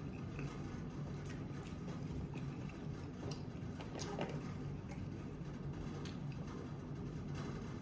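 Faint clicks and ticks of a large plastic jug being handled and its screw cap twisted off, with a short rustle about four seconds in, over a steady low hum.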